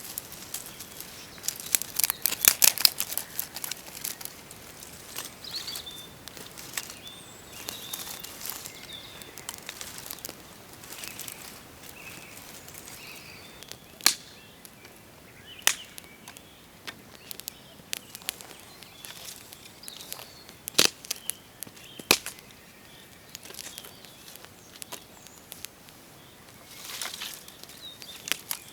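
Irregular sharp clicks and rustling handling noises, a quick flurry of them about two seconds in and a few single loud clicks later, with birds chirping faintly in the background.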